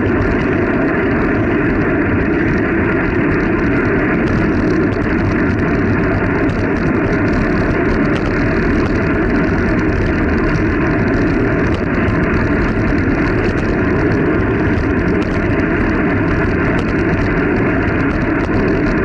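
Steady rush of wind over the microphone of a camera riding on a moving bicycle, loud and even throughout with no breaks.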